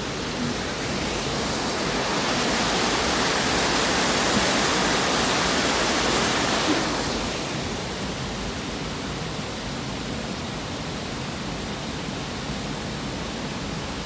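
Steady rushing of creek water flowing below a footbridge, swelling for a few seconds and then easing back.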